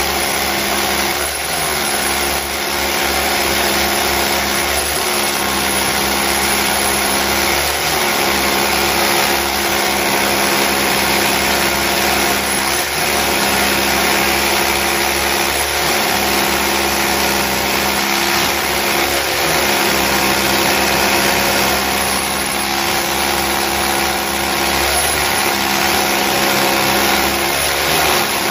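Two corded rotary hammers, a Bosch and a Makita, running together as they drill into concrete blocks: a loud, steady motor and hammering din, with the pitch dipping briefly every few seconds as the bits bear down.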